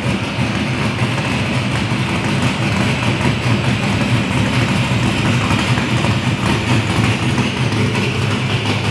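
A 427 cubic-inch naturally aspirated LSX V8 in an OBS Chevrolet pickup, running at a steady engine speed on a chassis dyno with the rear wheels driving the rollers. It makes a loud, even drone that holds one pitch throughout.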